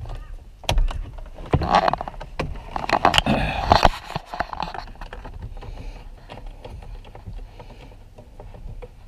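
Tool-on-plastic working noise at a car's steering wheel: clicks, knocks and scraping, busiest in the first four seconds, then only a few faint clicks.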